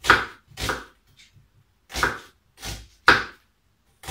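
Large kitchen knife chopping an onion on a wooden cutting board: five sharp knocks of the blade on the board, unevenly spaced, with a pause of about a second after the second one.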